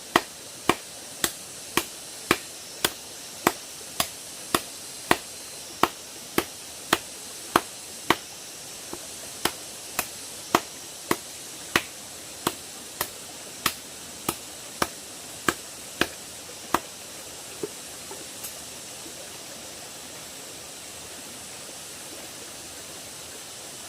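Sharp, even knocks repeated just under twice a second, over a steady hiss; the knocks stop about seventeen seconds in.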